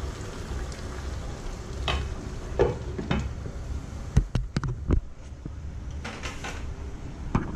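Wooden spatula stirring sweet and sour sauce and fish in a frying pan, the sauce sizzling over a steady low rumble. Several sharp knocks follow, a cluster about four seconds in as a lid is set on the pan.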